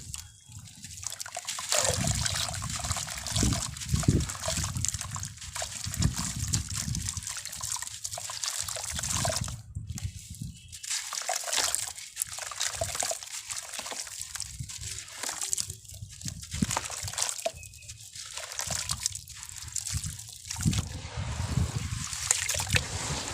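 Sand and cement clumps crumbling into water, with uneven sloshing, splashing and trickling and frequent soft low thuds.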